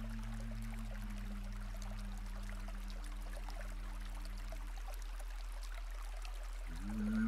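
Ambient meditation music: a steady drone of held low tones over the sound of running water. Near the end, a new tone slides up into place.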